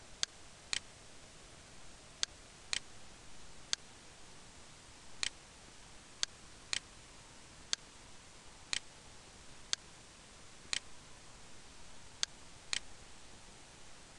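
About fourteen sharp, short clicks over a faint hiss, some single and some in pairs half a second apart, with gaps of a second or more between them.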